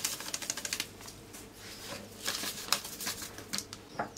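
Small paper sachets crinkling and being tapped as vanilla and baking powder are shaken out into a glass bowl: a run of light, quick ticks and rustles, with a single sharper knock near the end.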